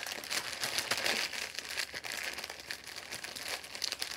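Gift-wrapping paper crinkling and rustling as it is handled and folded around a present: a dense, continuous run of small crackles.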